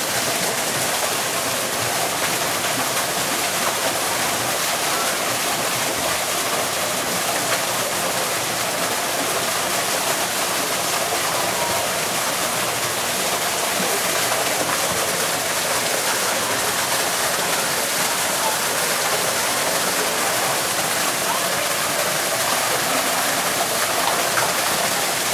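Steady rushing of running water, with faint voices in the background.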